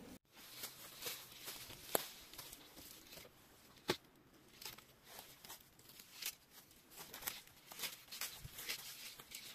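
Faint scattered crunches and sharp clicks of dry leaf litter and twigs being stepped on and brushed, without any metal-detector tone.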